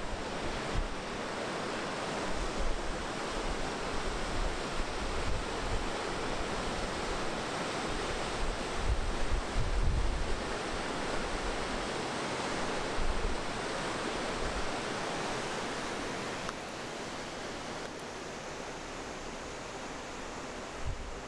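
A mountain river rushing through white-water rapids in a gorge, a steady rush of water that drops a little in level a few seconds before the end. Now and then wind buffets the microphone with low rumbles.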